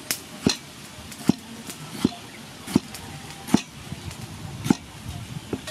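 Cleaver chopping tomato on a thick wooden chopping block: sharp knocks of the blade striking the wood, about eight of them, one every second or less.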